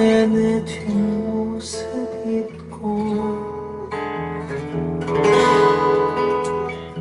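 Acoustic guitar played live, picked notes and chords in a passage of a song, with a louder strummed chord about five seconds in.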